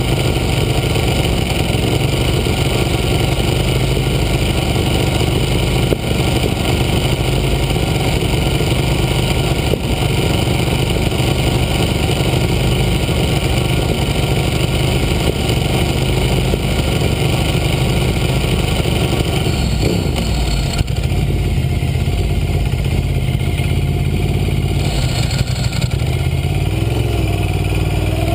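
Ducati Hypermotard 1100's air-cooled L-twin engine running at idle, heard close up from a camera mounted on the bike's belly. Near the end the engine note rises and falls as the bike moves off.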